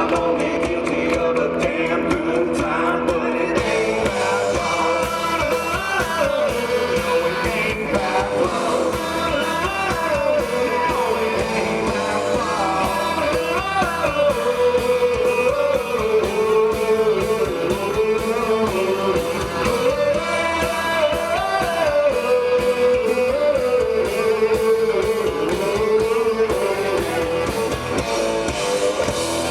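Live rock-and-roll band playing loudly, with drums and guitars under a lead line of bending, sliding notes that comes in about five seconds in.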